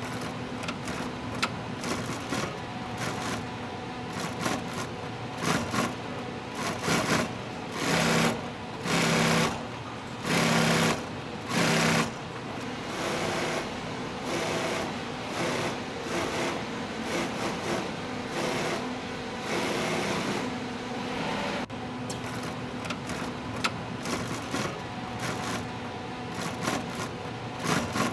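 Industrial sewing machines stitching car-interior leather in short start-stop runs. A cluster of louder runs of about a second each comes about a third of the way in.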